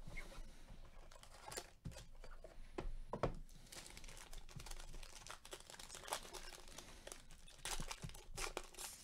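A sealed foil trading-card pack crinkling and being torn open by gloved hands, with many short crackles and rips and a louder burst of crinkling near the end.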